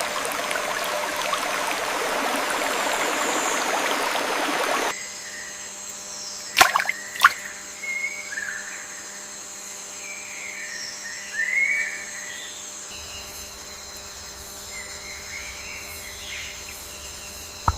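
Rushing stream water for about five seconds, then an abrupt change to quieter forest ambience: a steady high whine, short whistled bird calls and a few sharp clicks.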